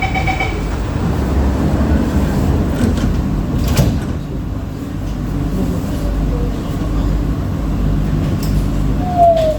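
Steady low rumble inside the passenger car of an SMRT C151B metro train on the move, with a sharp clack about four seconds in and a short falling tone near the end.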